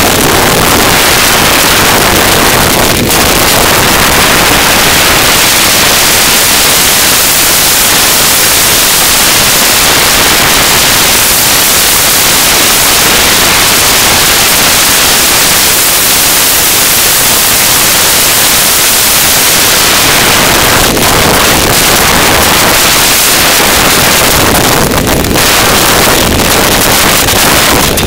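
Loud, steady rush of wind buffeting an on-board camera's microphone during a fast mountain-bike ride along a trail, with a few brief knocks.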